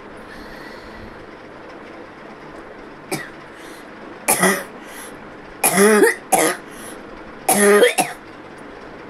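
A person coughing in a string of short, hoarse bursts, about six in all, some with a voiced edge, the loudest about six and eight seconds in, over a steady background hiss. The speaker says the coughing is coming on its own because she has a cold.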